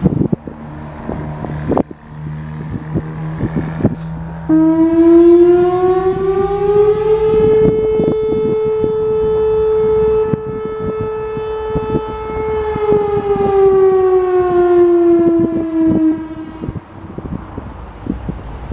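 Whelen Vortex R4 outdoor warning siren sounding its noon test. A few seconds in it winds up, rising in pitch, holds a steady tone for about five seconds, then winds down and stops. Its rotator is broken, so the tone does not swell and fade as it would with the siren turning.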